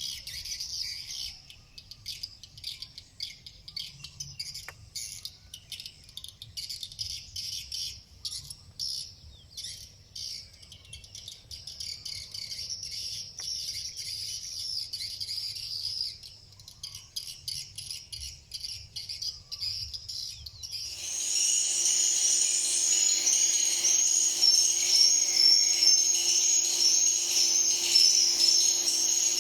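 Edible-nest swiftlets twittering in dense, rapid high chirps and clicks. About twenty seconds in the sound turns abruptly louder, becoming an evenly repeating chirp call over a low steady tone.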